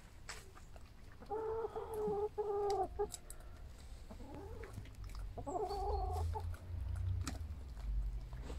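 Domestic hens clucking as they feed: a drawn-out call of about a second and a half, a softer gliding call, then another call of about a second, with a few faint clicks between. A low rumble joins from about five seconds in.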